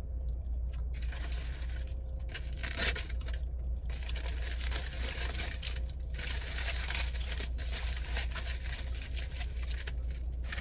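Sub sandwich's paper wrapper crinkling and rustling as it is handled, in several stretches with short pauses between.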